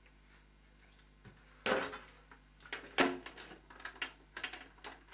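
Clacks and knocks of hard tool parts being handled and fitted together, with two louder knocks about one and a half and three seconds in and lighter clicks between them.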